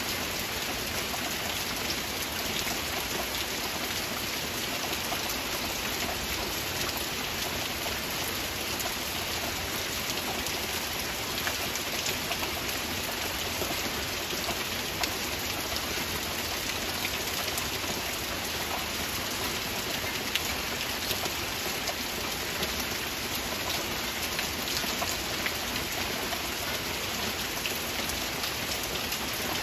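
Rain falling steadily: an even, dense hiss with many small drop impacts, unchanging throughout.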